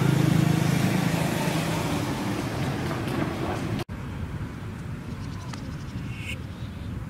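Road traffic: a motor vehicle going by with loud, low engine and tyre noise, loudest at the start and fading. It cuts off suddenly about four seconds in, leaving a quieter, steady street background.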